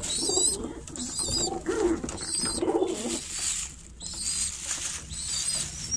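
Domestic pigeons cooing, with high, wavering bird chirps repeating about once a second over the coos.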